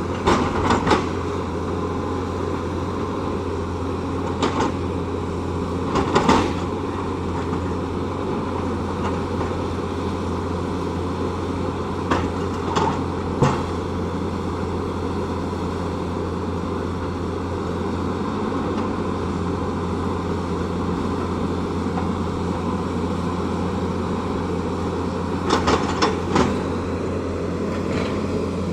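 Tata Hitachi excavator's diesel engine running steadily under work, with short knocks and clanks now and then, in clusters several seconds apart.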